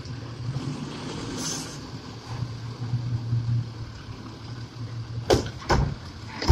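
Automated side-loader garbage truck running with a steady low hum while its hydraulic grabber arm swings up and back down. There is a brief hiss about a second and a half in, and three sharp clunks near the end, the last the loudest.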